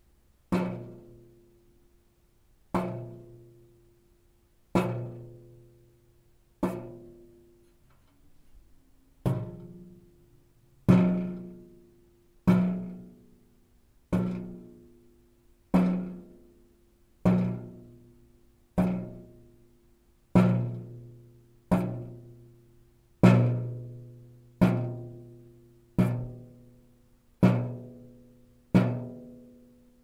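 Metal being knocked on, one ringing strike at a time, each knock sounding a low pitched tone that dies away before the next. The knocks come about every two seconds at first, then about every second and a half from roughly nine seconds in.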